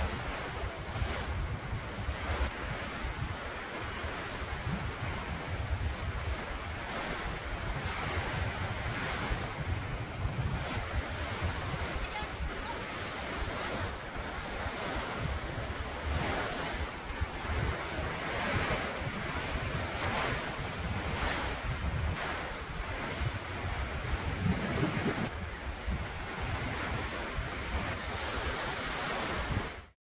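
Small waves washing onto a sandy shore in swells every second or two, over wind buffeting the microphone.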